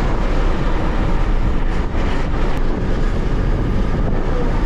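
Steady wind rush and road noise inside a moving car.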